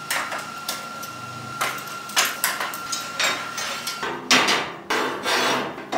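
Light metallic clicks and clanks as locking welding clamps are handled on a steel fixture table, over a faint steady whine. About four seconds in they give way to louder clanking of steel rods knocking against the steel smoker barrel.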